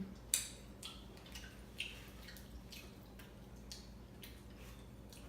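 Wet chewing and lip-smacking: short sharp mouth clicks, about two a second, the loudest just after the start.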